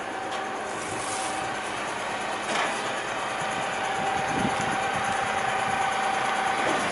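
Low-entry side-loader rubbish truck idling, with a steady whine running over the engine noise that grows stronger partway through.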